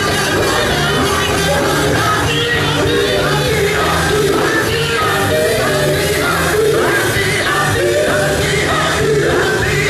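Male gospel group singing live into microphones over an amplified band of drums, keyboard and bass, with a lead voice shouting out lines over the harmonies. A repeating bass line runs underneath.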